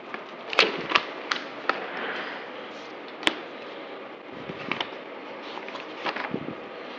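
Scattered sharp clicks and light knocks from handling papers and objects at a desk, over a steady background hiss; the sharpest, a single click, comes about three seconds in.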